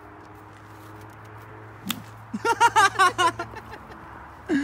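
A single sharp crack about two seconds in, then a quick run of about eight short, loud pitched calls, each bending in pitch.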